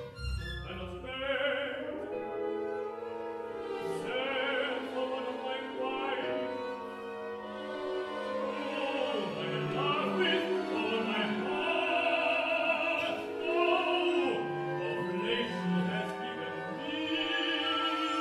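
Contemporary classical music: an operatic voice sings long held notes with wide vibrato over sustained orchestral strings.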